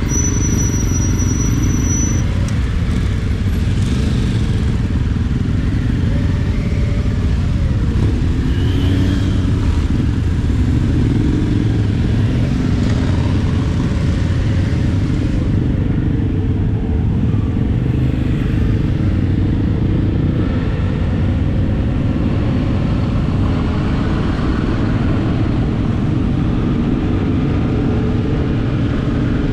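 Motorcycle engine running steadily at low speed: the Suzuki V-Strom 650 XT's 645 cc V-twin, with faint rises and falls in pitch as the throttle changes, among a line of other motorcycles.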